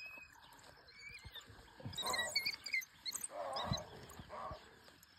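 African wild dogs giving high-pitched squeaking, twittering calls while feeding on an impala kill, in two bursts about two seconds and three and a half seconds in.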